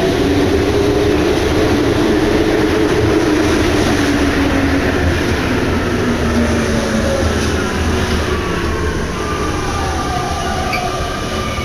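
Interior running noise of a rubber-tyred MP89CA Paris Métro train: a steady rumble with a whining hum from the traction equipment. From about seven seconds in several whine tones slide down in pitch as the train slows.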